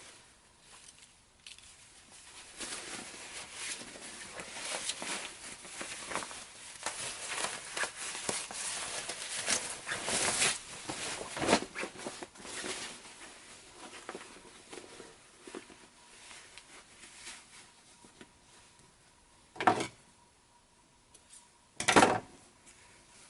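Fabric rustling and swishing as a lined jacket's shell and lining are pulled through each other, busiest in the first half and then quieter. Two sharp knocks sound near the end.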